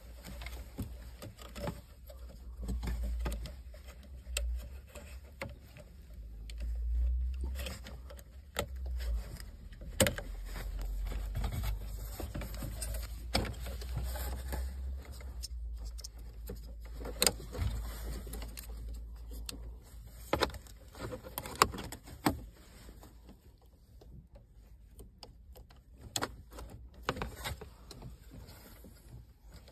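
Hands working wiring in a car dashboard's radio opening: scattered clicks and knocks of plastic harness plugs and cables being handled, over an uneven low rumble.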